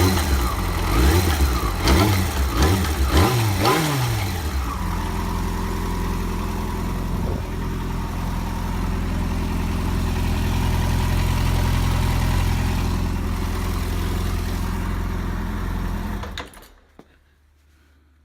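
Yamaha FZ6 S inline-four engine revved in about five quick throttle blips, then idling steadily until it is switched off about sixteen seconds in. The owner hears a knock from the clutch basket, near the front sprocket, when the throttle is snapped open.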